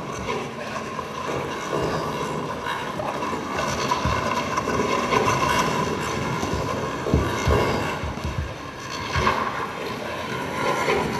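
A steady rushing noise like wind and surf, with irregular dull thumps of feet on a stage floor.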